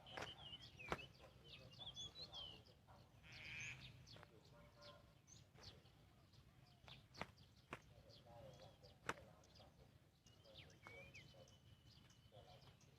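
Quiet outdoor ambience with faint, scattered bird chirps and calls, a few sharp clicks, and a low steady hum underneath.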